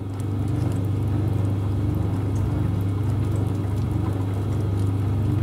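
Cut-away AEC six-cylinder diesel engine exhibit being turned over slowly by a drive motor: a steady low hum that comes up about half a second in, with faint light clicking from the moving valve gear.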